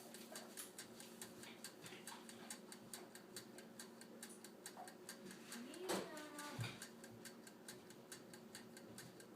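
Toaster oven's mechanical timer ticking steadily, about five faint ticks a second, as the oven counts down. About six seconds in there is a brief sound that rises in pitch.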